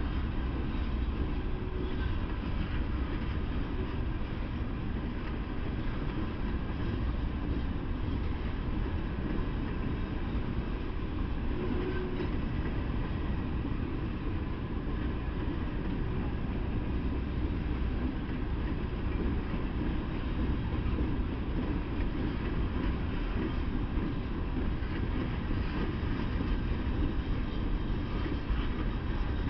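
Norfolk Southern freight train's open-top coal hopper cars rolling past steadily, wheels running on the rails with no break.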